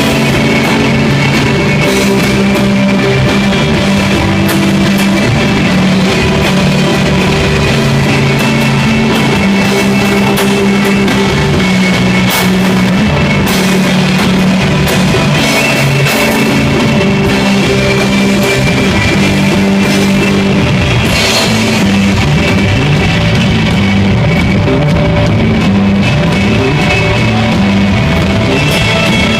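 Live instrumental desert rock from an electric guitar, bass and drum kit trio, loud and steady, with sustained low notes and cymbal crashes now and then.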